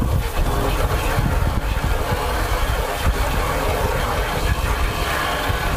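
Garden hose pistol-grip spray nozzle blasting water against a car's front bumper during the pre-rinse: a steady hiss and splash of pressurised water, over a low, uneven rumble of wind on the microphone.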